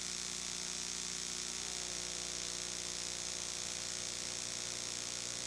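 Steady electrical hum with a faint buzz and hiss, unchanging throughout and with no speech or music: mains hum on an off-air TV recording of fair audio quality.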